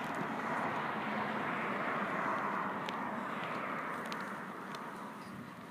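A vehicle passing on a nearby road, a steady rush of tyre and road noise that swells and then slowly fades away.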